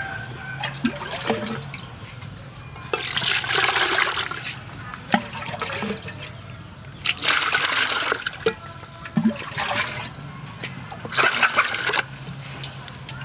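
Water bubbling and sloshing in a metal cooking pot around a large sea snail, coming in three surges of a second or so each.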